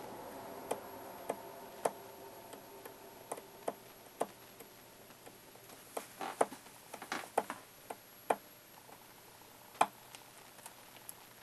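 Small metal hand tools clicking and tapping on a jeweler's bench as a fine gold chain is handled for soldering: irregular sharp ticks, bunched together in the middle, with the loudest one near the end.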